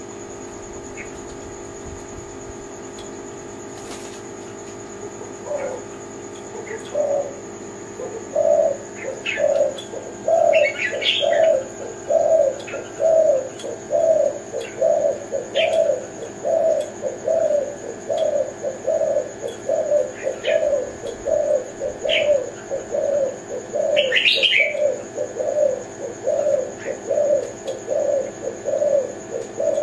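Spotted dove (tekukur, Kelantan type) cooing: a long run of low, evenly repeated coo notes, a little more than one a second, starting about five seconds in. Short high chirps from small birds come in over it.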